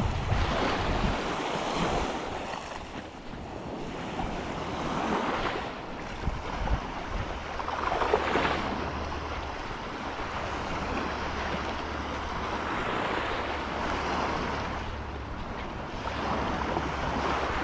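Small lake waves washing onto the shore, surging every few seconds, with wind rumbling on the microphone.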